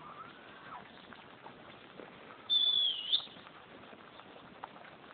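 A single high whistled note, held for under a second about two and a half seconds in, dipping and rising again at its end. It is preceded by a fainter gliding note near the start, over a quiet steady background.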